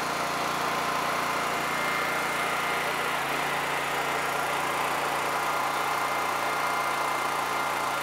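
Small portable generator engine running steadily under the load of a submersible well pump; its low note shifts slightly about three seconds in. Water splashes from the pump's discharge pipe into the tank.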